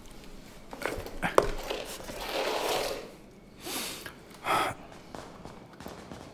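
A person moving on a chair: a few small knocks and clicks, then breathy exhales.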